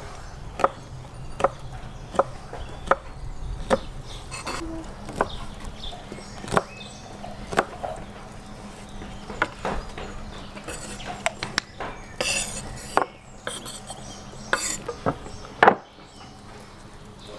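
Knife chopping smoked sausage on a wooden cutting board: sharp knocks of the blade on the board, evenly spaced a little under a second apart at first, then irregular.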